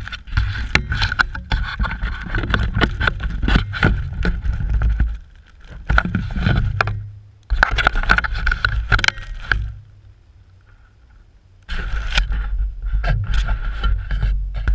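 DJI Phantom quadcopter's motors and propellers whining while it sits in the grass, with a low rumble and many rapid clicks and knocks. The whine drops out a few times, for about two seconds two-thirds of the way in, then comes back.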